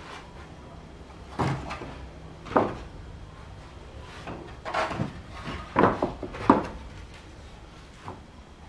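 Long wooden planks knocking and clattering against each other as they are shifted by hand in a rack against a wall: about five separate knocks, sharpest and loudest around the middle.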